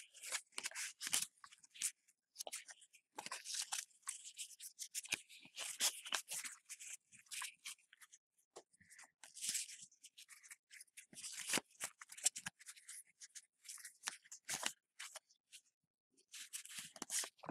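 A stack of Upper Deck hockey trading cards being sorted by hand: the cards slide and flick against one another in irregular short rustles and light clicks, with brief pauses between.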